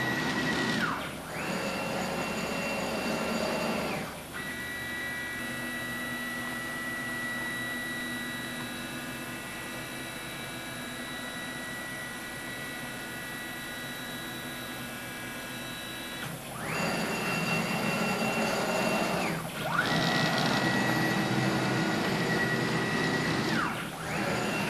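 Stepper motors of a Joe's CNC 4x4 hybrid router with rack-and-pinion drives whining as the machine moves: several separate moves, each whine rising in pitch as it starts, holding steady, then dropping as it stops, with a longer, quieter, steadier whine through the middle.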